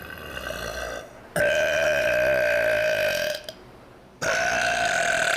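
A person burping: two long, loud burps held on a steady pitch, the second starting about four seconds in.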